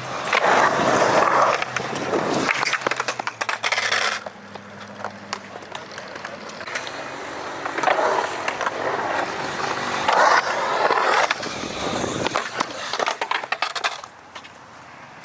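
Skateboard wheels rolling over a concrete skatepark, with several louder passes of carving and scraping rising and falling as the board moves through the bowl.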